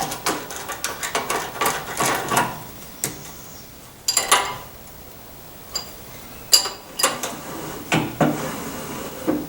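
Scattered clinks and taps of the feed handles being threaded into the hub of a Delta 18-inch drill press, with a short clatter about four seconds in and a few sharper clicks near the end.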